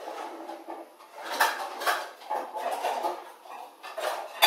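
Dishes and cookware clattering and knocking in a kitchen cupboard while a baking dish is fetched, with a few sharp knocks, the loudest near the end.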